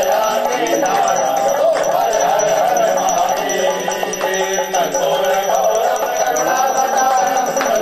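Hindu devotional music: a voice chanting in a wavering melodic line over accompaniment, with small bells jingling throughout.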